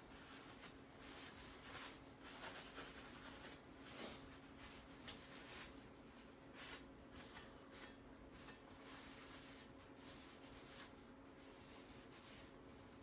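Faint, irregular rubbing strokes of a santoku knife's edge being honed.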